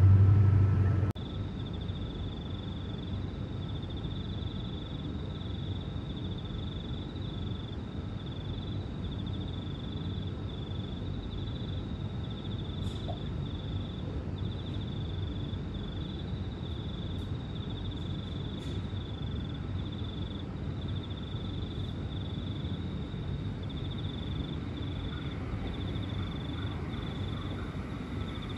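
A continuous high-pitched insect chirring that wavers slightly, over a steady low background rumble. A louder low rumble cuts off about a second in.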